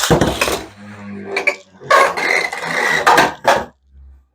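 A Hasbro QuadStrike Beyblade top is launched with a sharp rip and clatter. It then spins and grinds around a plastic stadium with a high whine, knocking sharply against the walls several times.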